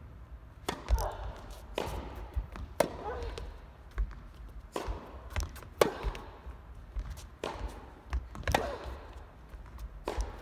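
A tennis ball is struck by rackets and bounces on an indoor court: a string of sharp pops and thuds, roughly one every second.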